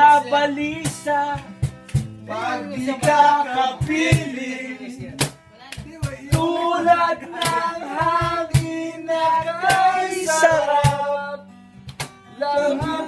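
A man singing, accompanied by a strummed acoustic guitar and sharp slaps on a cajón, in a live, informal jam.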